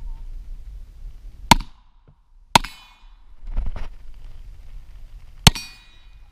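Three pistol shots, each a sharp crack with a short ringing tail. The first two come about a second apart and the third about three seconds later.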